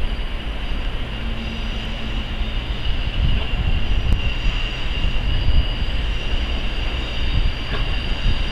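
A Virgin Class 221 Super Voyager diesel multiple unit approaching at speed: a steady low rumble of engines and wheels on the rails, with a high thin whine held above it, getting a little louder about three seconds in.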